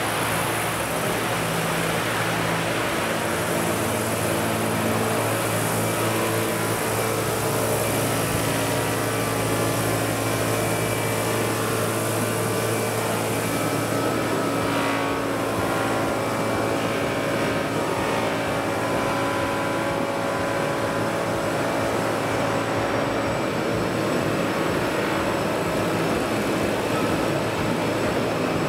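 Vario CH-47 Chinook scale model helicopter in flight, its tandem rotors and drive running with a steady hum that holds an even level throughout.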